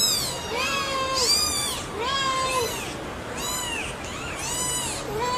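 Kittens mewing over and over: short calls that rise and fall in pitch, some high and thin and some lower, coming about one every second.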